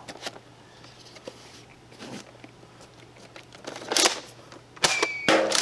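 Foam-dart blaster firing Mega XL darts: a sharp air pop about four seconds in, a click, then another pop with a short high whistle near the end, with small handling knocks between.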